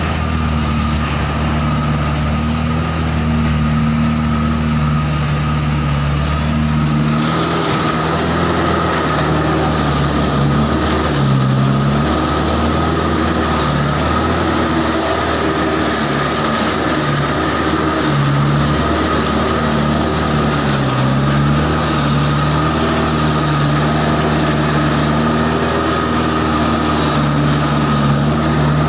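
Vehicle engine heard from inside the cab, running under load as it climbs a rocky dirt track, its pitch rising and falling, with a steady high whine alongside. The sound changes character about seven seconds in.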